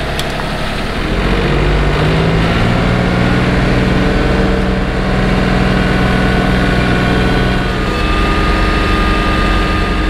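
John Deere compact tractor engine running, heard from inside its cab; it revs up about a second in, runs steadily, and eases off slightly near the end.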